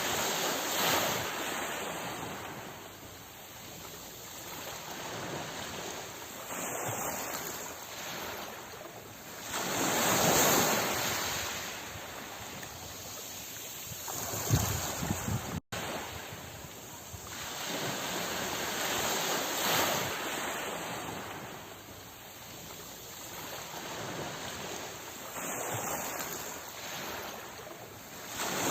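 Sea waves breaking and washing in, swelling louder every nine or ten seconds and easing off between. A brief dropout about halfway through marks where the recording loops.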